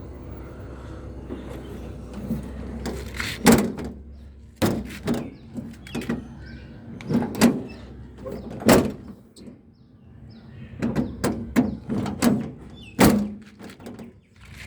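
Jeep door and its lock being worked: a run of latch clicks and knocks with several sharp bangs, as the door is shut repeatedly to test the repaired lock.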